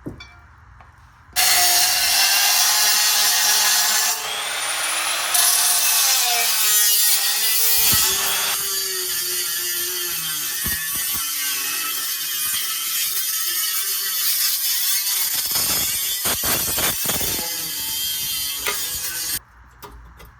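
Angle grinder cutting away a factory steel brake dust shield to clear larger rotors. It starts suddenly about a second in, runs loud with a pitch that wavers under load, and stops near the end.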